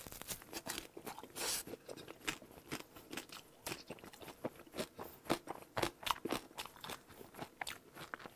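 Crisp deep-fried pork-belly chicharrón, dipped in guacamole, being bitten and chewed: a long run of irregular crunches.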